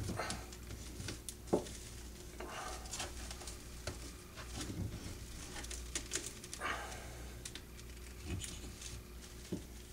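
Jute twine being wound tightly by hand around a bundle of dry broom twigs: soft rustling with scattered light crackles and ticks from the twigs.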